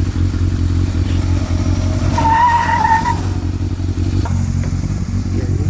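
U-Haul rental truck's engine running hard during a burnout, with a tyre squeal lasting about a second partway through.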